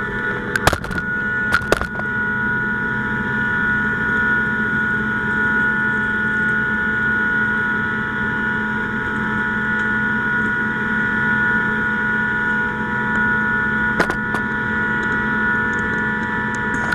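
Steady, loud rushing drone with a constant whine from the fire attack: the fire engine's pump running and a hose line flowing water. Sharp knocks come about a second in and again near the end.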